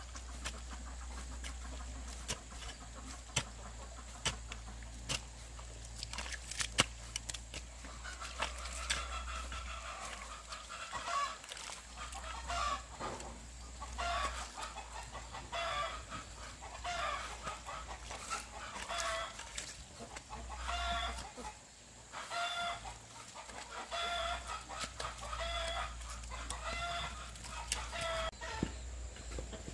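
A chicken clucking over and over, short pitched calls coming about once a second from several seconds in, over a steady low hum. Sharp clicks are heard in the first few seconds.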